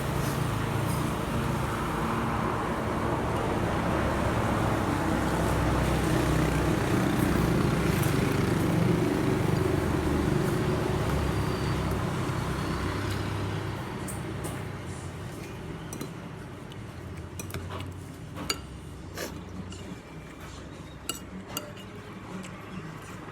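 Steady rumble of a motor vehicle's engine that swells and then fades out about thirteen seconds in, followed by a few scattered light clinks.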